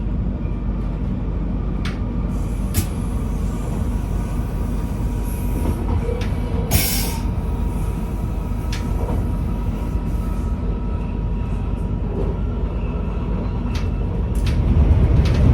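Passenger train running along the track, heard from inside the carriage: a steady low rumble with a faint steady whine, scattered clicks and a brief hiss about seven seconds in, growing louder near the end.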